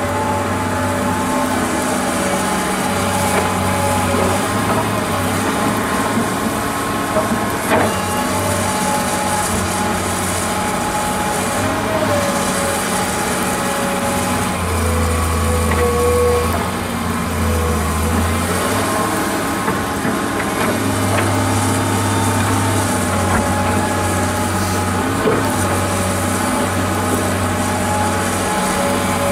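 Komatsu PC210 crawler excavator's diesel engine and hydraulics running under load as it digs and lifts soil, the tone dipping and rising with the work. A few sharp knocks are heard along the way.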